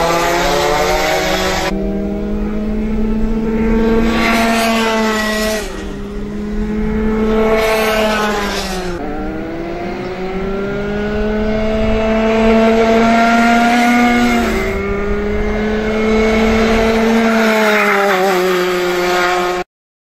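Two-stroke racing kart engines screaming at full throttle. The pitch climbs steadily along the straights and drops sharply into the corners three times. The sound cuts off abruptly just before the end.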